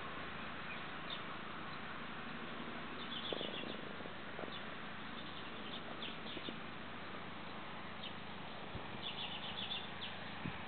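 Outdoor ambience: a steady hiss with small birds chirping faintly in short, quick clusters of high chirps, a few times.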